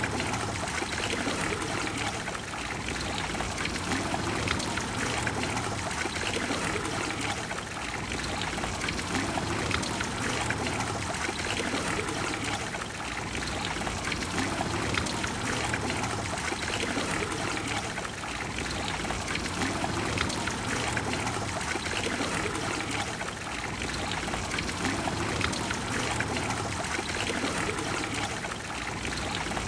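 Water of the Trevi Fountain cascading and splashing into its basin: a steady rushing splash that swells gently every five seconds or so.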